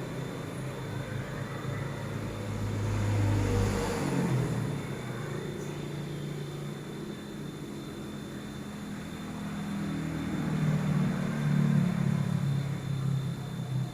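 A motor vehicle's engine running with a low rumble, swelling twice as it changes pitch.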